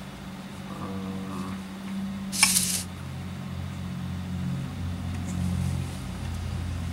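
Handling noise from a Milwaukee M12 drill's trigger switch and plastic housing being fitted back together by hand, with one brief sharp noise about two and a half seconds in, over a steady low hum.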